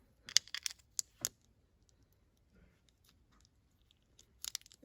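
Plastic Lego bricks clicking as they are handled and pressed together: a scatter of sharp clicks in the first second or so, then a quick run of clicks near the end.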